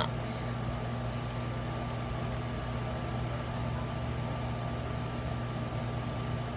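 A steady machine hum with a constant hiss, unchanging throughout.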